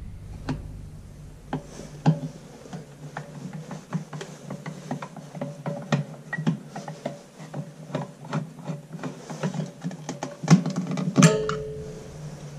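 Small clicks and scrapes of a screwdriver backing a screw out of the plastic cover of an air compressor's pressure switch, then two louder plastic clacks about ten and eleven seconds in as the cover is pulled off.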